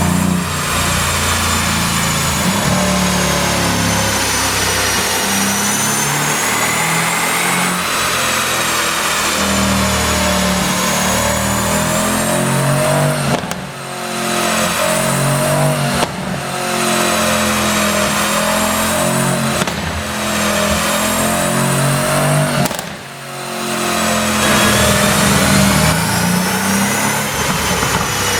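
2017 Mercedes-AMG C63's twin-turbo V8 and its exhaust, fitted with a pop-and-crackle tune. The engine note rises and falls over several seconds at a time, broken by four brief drops in level.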